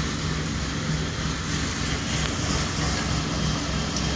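Kubota DC105X rice combine harvester running steadily, a constant diesel engine hum with an even low drone.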